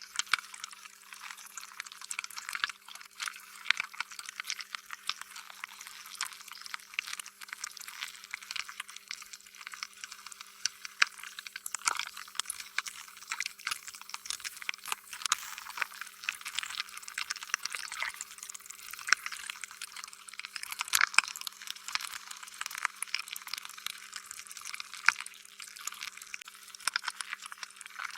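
Slime being squished and worked by hand: a continuous run of many small wet, sticky crackles and squelches, with a faint steady low hum beneath.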